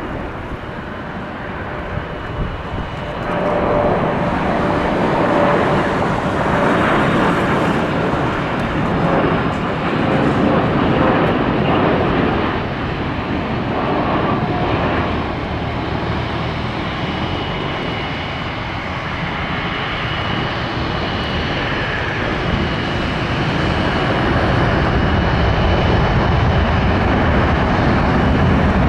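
Boeing 747-400 freighter's four jet engines heard on a landing: a steady roar that swells a few seconds in as the jet comes closer, with a thin high whine from about halfway through touchdown and rollout. Near the end a deeper rumble builds as reverse thrust is applied.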